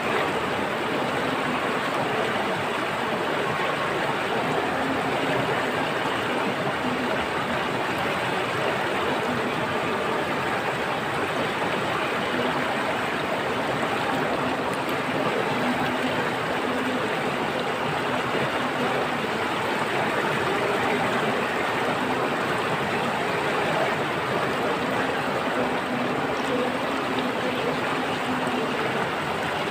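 Water flowing in a stream, a steady rushing sound with no breaks.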